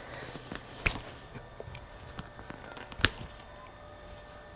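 Quiet handling noise of hands working on small wiring and tools, with two sharp clicks about two seconds apart and faint ticks between.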